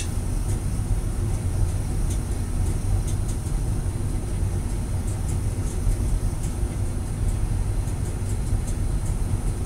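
Steady low rumble of background noise, with faint scattered light ticks.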